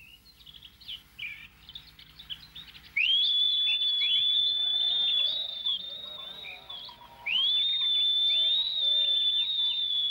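Birds chirping, then two long high whistled notes, each sliding quickly up and held for about three seconds, with a few chirps around them.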